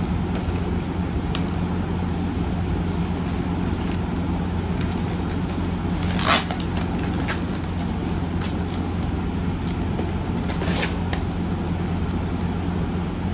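Cardboard box and packaging being handled and opened: scattered small clicks and rustles, with a louder crackle about six seconds in and another near eleven seconds, over a steady low hum.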